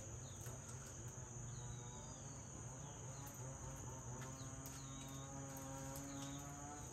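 Insects droning steadily at one high pitch, with faint short chirps and a low steady hum underneath.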